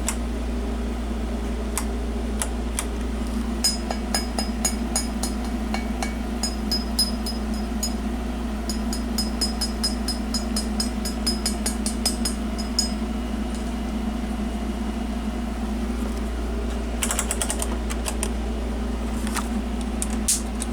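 Steady electrical hum with a run of quick, light clicks in the middle, and a brief crackle near the end.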